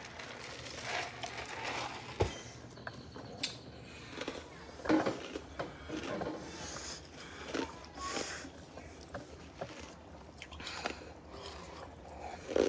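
Faint, scattered small clicks, knocks and rustles of handling and movement in a small room, with no steady sound under them.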